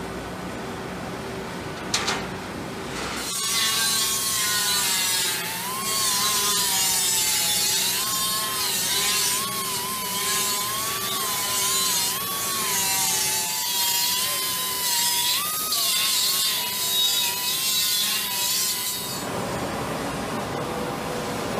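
A metal clank about two seconds in as a cut steel panel is set down on a steel cart. Then a handheld power sander grinds along the panel's edges for about fifteen seconds, its motor whine wavering as it bears on the metal, deburring the cut edges. It stops shortly before the end, leaving the steady hum of shop machinery.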